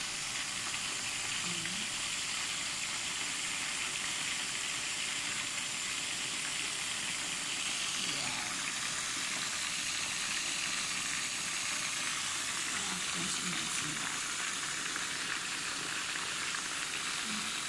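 Stuffed zucchini deep-frying in a pot of hot oil: a steady sizzle.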